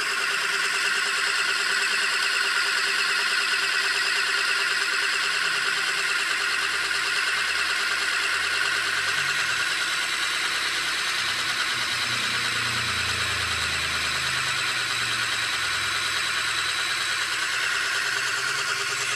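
The small DC motor and belt drive of a homemade, USB power-bank-powered scroll saw running steadily, a constant high whirring over a steady hum.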